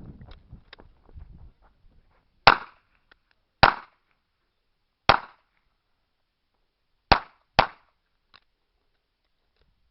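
Five revolver shots fired at an uneven pace, the last two close together, each with a short ringing tail.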